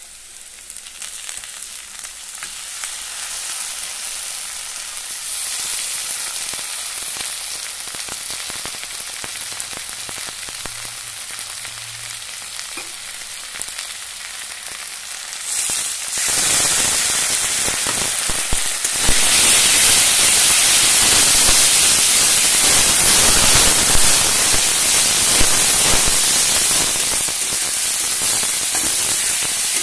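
Onions frying in hot mustard oil in a wok, a steady sizzle that turns into much louder frying about halfway through, and louder again a few seconds later, as wet onion-garlic-ginger paste is stirred into the oil.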